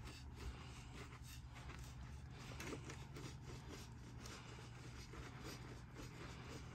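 Faint, irregular scratching of a plastic back scratcher rubbed through a cat's fur, over a steady low room hum.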